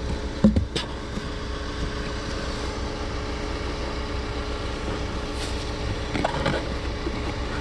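Car's cabin blower fan running with the AC on, giving a steady hum over a low rumble, with a couple of short knocks about half a second in and again near six seconds. The noise comes from a leaf caught on the fan.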